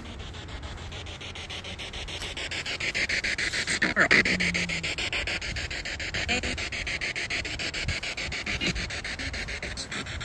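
Spirit box sweeping through radio stations: hissing static chopped several times a second, swelling from about two seconds in. About four seconds in, the loudest moment, a brief falling tone ends in a short low hum.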